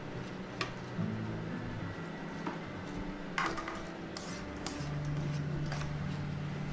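A metal spoon scraping and knocking against a metal pot while rice is scooped out into a rice cooker: several separate clinks, the loudest about three and a half seconds in, over a steady low hum.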